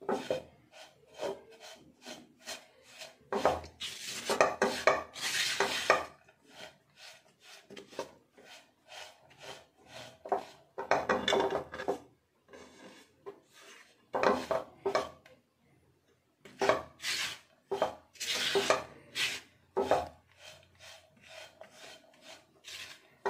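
Silicone spatula scraping and stirring crumbly besan (gram flour) in ghee across a nonstick kadhai, in irregular strokes with short pauses: the besan being roasted on a low flame.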